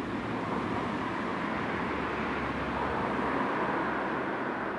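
A car passing on a nearby road: a steady rushing noise that swells to a peak about three and a half seconds in, then begins to fade.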